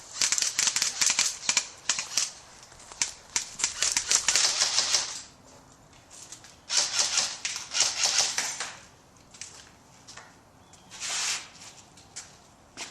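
Airsoft rifles firing in rapid full-auto bursts of sharp clicking shots. The first burst lasts about five seconds, a second about two seconds follows, and a short one comes near the end.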